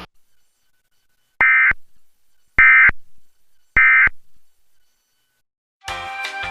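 Emergency Alert System SAME digital data tones giving the end-of-message code: three short, loud, screechy bursts about a second apart, marking the close of the tornado warning broadcast. Music starts near the end.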